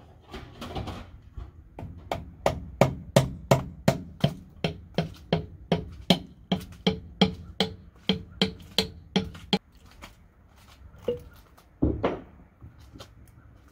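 Steady hammer blows on the steel of a monster truck's planetary hub, about three a second for some seven seconds, each with a short metallic ring, knocking the planetary faceplate loose. Near the end come a couple of heavier clunks as the faceplate is worked off the hub.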